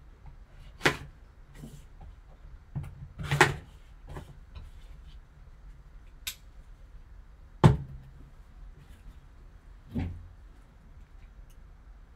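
About five scattered sharp knocks and clicks, one with a short scrape, as a sealed cardboard card box is slit at its seals with a folding knife and handled. The loudest knock comes about halfway through.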